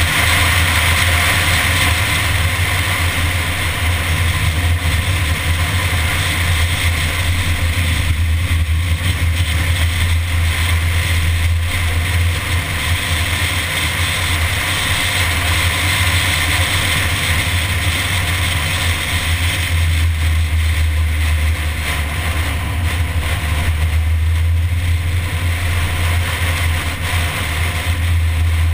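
A MINI being driven at road speed: a steady drone of its engine running, mixed with wind and road noise at a car-mounted camera, with no sharp revving or gear-change bursts.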